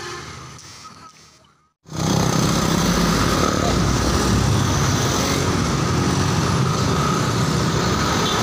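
A musical bus horn fading out, a moment of silence at a cut, then steady road-vehicle noise with a low engine rumble, as of a bus running in traffic.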